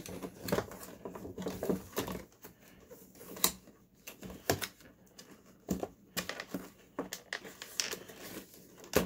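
Stiff clear plastic clamshell packaging being handled and pried open: irregular clicks, crackles and snaps of the plastic.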